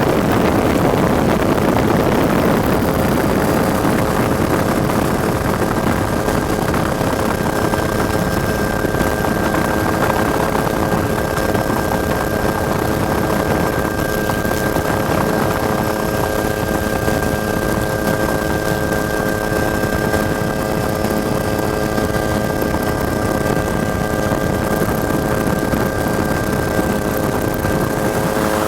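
Helicopter engine and rotor noise: a steady drone with several constant whining tones, with a heavier rushing noise for the first few seconds.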